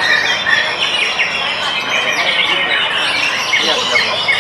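White-rumped shamas and other caged songbirds singing at once in a dense, unbroken chorus of overlapping whistles and chirps.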